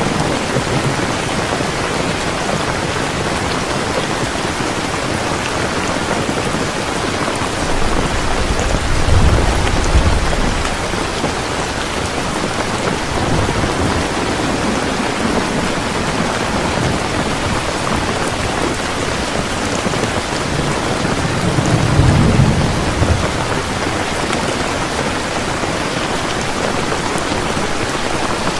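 Heavy rain pouring steadily in a thunderstorm, with two low rumbles of thunder, one about a third of the way in and another about three quarters of the way in.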